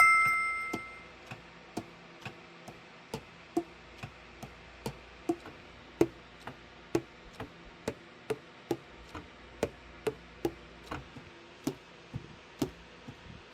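A sharp knock with a short ringing tone, then a long run of evenly spaced clicks, a little over two a second, some louder than others.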